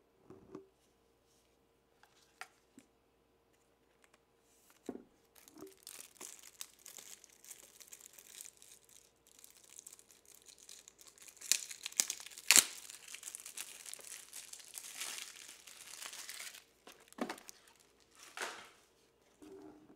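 Foil wrapper of a baseball card pack being torn open and crinkled, with two sharp loud rips a little past the middle.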